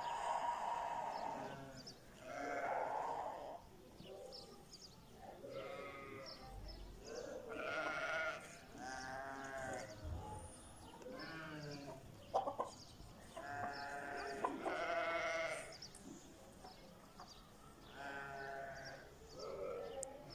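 Livestock bleating: a string of about ten wavering calls, each roughly a second long, with faint short high chirps between them.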